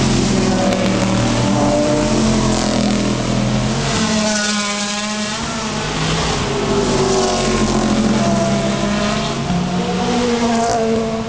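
Sports-prototype and GT race cars' engines under hard acceleration, several at once, their notes stepping in pitch as they shift up through the gears. One car passes close about four seconds in.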